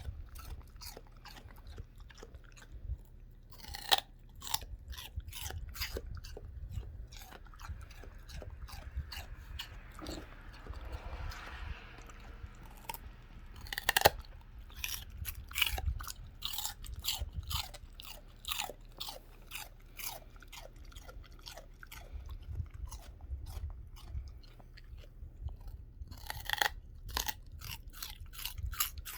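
Belgian Malinois puppy chewing celery: rapid, irregular wet crunches with two louder snaps, about four seconds in and again about fourteen seconds in.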